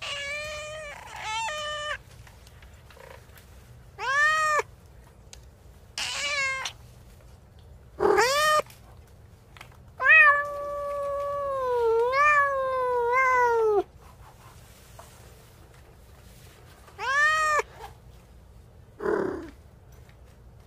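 Cat meowing repeatedly: several short meows a couple of seconds apart, then one long, drawn-out meow that wavers up and down in pitch for about four seconds. Near the end comes a short, harsher call without a clear pitch.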